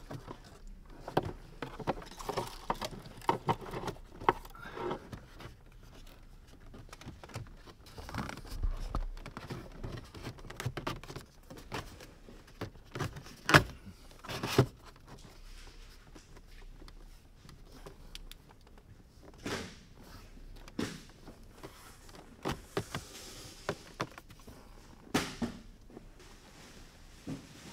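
Plastic dashboard trim around the instrument cluster being handled and pressed into place: scattered clicks, taps and knocks, with the two loudest knocks about a second apart halfway through.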